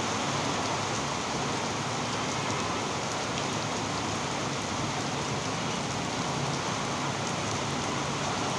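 Steady rain falling, an even continuous hiss of rain on the ground and surroundings.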